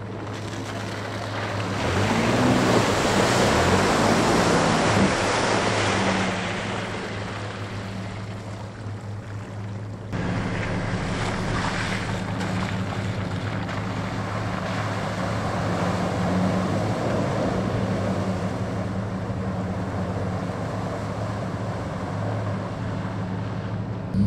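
Nissan off-road trucks driving through muddy, water-filled ruts: a steady engine hum under splashing water and mud spray. The splashing swells loudest about two to six seconds in, and the sound changes abruptly about ten seconds in.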